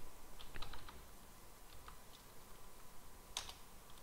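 Faint computer keyboard typing: a quick run of keystrokes about half a second in, a few scattered taps, and two sharper clicks near the end as a short command is typed and entered.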